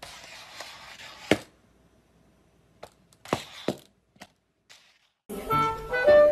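A few sharp knocks or thuds: one loud one over a brief hiss about a second in, then three or four softer ones, before music starts near the end.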